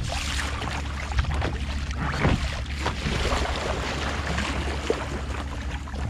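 Wind buffeting the microphone and sea water lapping around a fishing kayak, with a steady low rumble and a few light knocks.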